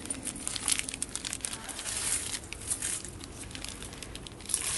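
Zip-lock plastic bag crinkling and rustling in a dense crackle as it is squeezed and handled while it holds a baking soda and vinegar mix.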